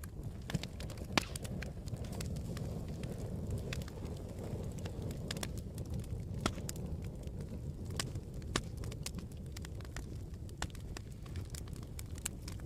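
Campfire crackling: a steady low rush of burning wood with sharp pops and snaps scattered irregularly, one of the sharpest about a second in.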